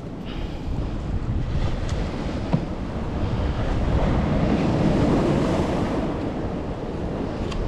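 Ocean surf washing against a rock ledge, swelling to its loudest about halfway through and then easing, with wind noise on the microphone.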